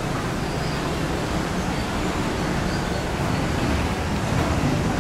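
Steady outdoor city background noise: a continuous rushing sound, heaviest in the low range, with no single event standing out.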